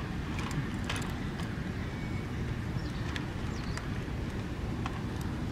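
Steady low outdoor rumble, with a few faint high chirps and ticks over it.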